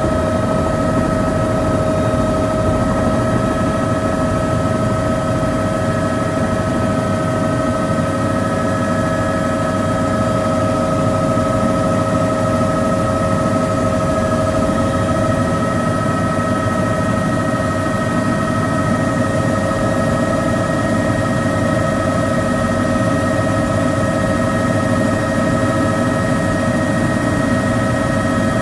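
Helicopter engine and rotors running steadily in flight, heard from inside the cabin: a constant low rumble with a steady two-note whine over it.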